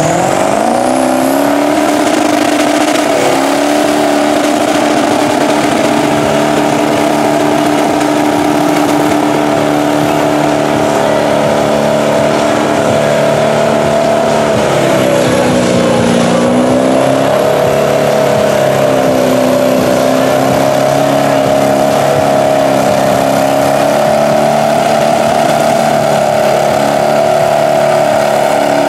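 Twin-engine Ford diesel mud truck running at full throttle through the mud. The engines rev up sharply about a second in and hold high revs, sag for a moment about halfway through, then pick back up and hold steady.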